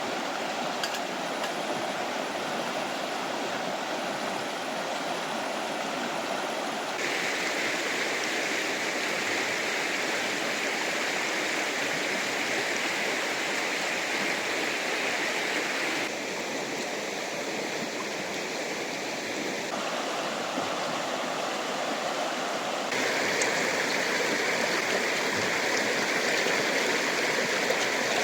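Fast-flowing river water rushing in a steady, dense noise, which shifts abruptly in tone several times as it goes.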